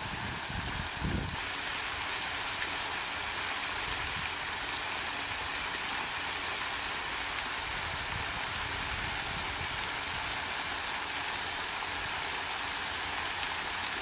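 Steady hiss of falling water spray, with a few low rumbles in the first second or so.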